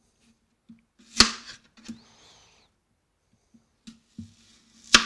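Kitchen knife cutting through an onion onto a plastic cutting board: a sharp chop about a second in and a louder one near the end, with a few lighter taps between.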